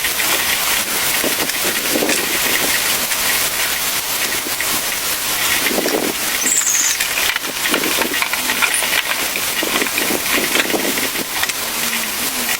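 Steady hiss of rain, with water splashing now and then as dishes are washed.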